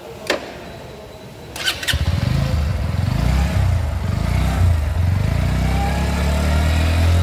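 Bajaj Pulsar NS125's single-cylinder engine is started after a couple of clicks, catching about two seconds in, then runs at idle with a slight wavering of pitch.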